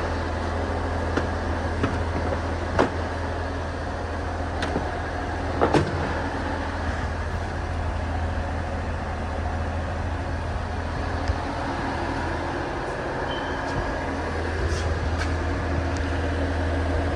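A steady low mechanical hum, with a few sharp clicks and knocks, the loudest a couple of seconds apart.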